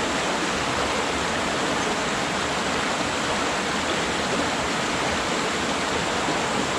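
Fast, shallow mountain stream rushing over and around boulders in rapids: a steady, even rush of water.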